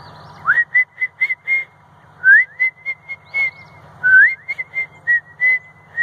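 Person whistling a cardinal-style bird call: three phrases, each a rising note followed by a run of short, evenly pitched whistled notes at about four a second.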